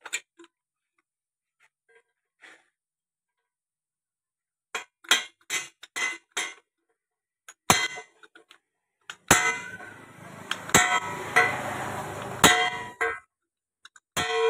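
Hammer blows ringing on steel: a new bush being driven into the spindle bore of a John Deere 5055E front axle housing. There are about a dozen sharp, irregular strikes, a quick run of five or six about five seconds in and heavier, more widely spaced blows after that. A steady noise runs under the blows for a few seconds in the middle.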